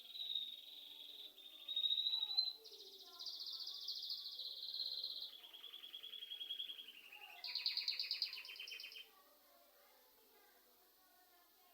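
Songbird singing: a run of fast trills, each held for a second or two before jumping to a new pitch, stopping about nine seconds in.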